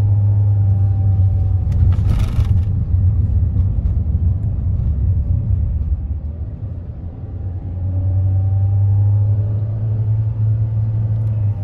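Steady low rumble of a car driving on the road, heard from inside the cabin. It eases off briefly about two-thirds of the way through, then returns, with a short rustle about two seconds in.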